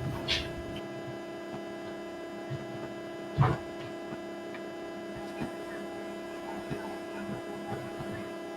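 Steady electrical hum, with one dull thump about three and a half seconds in.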